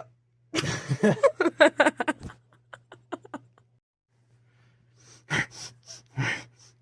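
Breathy, wheezing laughter in quick pulses for about two seconds. After a short pause, a few more short bursts come near the end.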